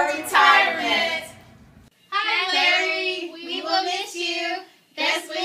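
A small group of voices singing together, the phrase fading out about a second and a half in. After a short silent gap, a group of women sings again, with a brief pause near the end.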